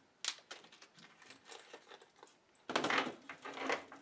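Small metal parts clinking and rattling as they are handled, with scattered clicks and a dense jangle about three seconds in.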